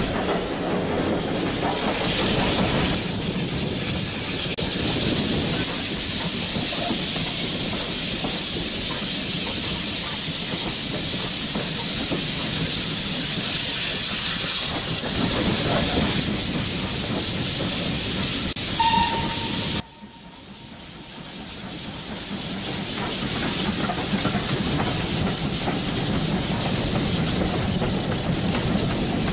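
Steam train running, heard from a carriage at an open window: a steady rumble and hiss of the train with the wheels on the rails. Around two-thirds of the way through, the locomotive's whistle gives a short toot. Right after it the sound drops away suddenly and then builds back up over a few seconds.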